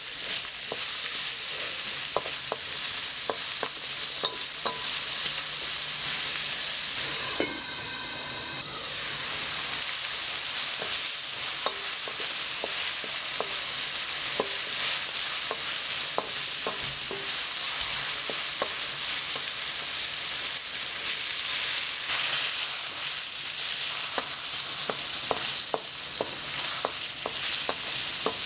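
Diced carrots, onion and chili sizzling in hot oil in a wok while a wooden spatula stirs them, with frequent clicks and scrapes of the spatula against the pan. The sizzle breaks off briefly about eight seconds in.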